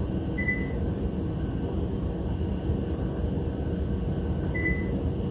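Two short, high beeps from the Epson ET-15000 printer's touchscreen control panel as it is tapped, about half a second in and again near the end, over a steady low rumble.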